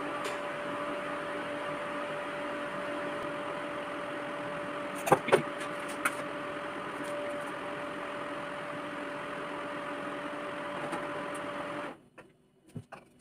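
A kitchen appliance's fan or motor running with a steady hum and a fixed tone, switched off suddenly near the end. A few light clicks come about five to six seconds in.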